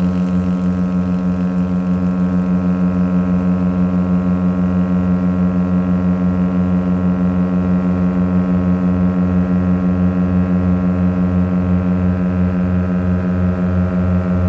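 Small propeller plane's piston engines droning steadily, heard from inside the cabin, with a regular pulsing beat in the drone.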